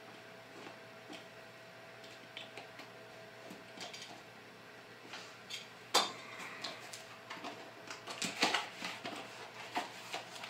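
Cardboard product box being handled and opened: small clicks, taps and rustling of cardboard, with one sharp knock about six seconds in as something is set on or taken from the wooden workbench, and a burst of cardboard rustling a couple of seconds later.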